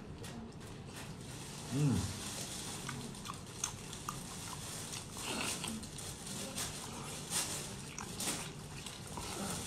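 Close-up wet chewing, lip-smacking and slurping of a person eating boiled octopus tentacles, with many small clicks and a few short sucking slurps. About two seconds in, a short voiced sound rising and falling in pitch stands out as the loudest moment.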